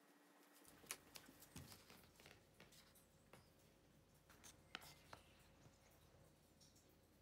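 Faint scratching and small taps of a pen writing on paper.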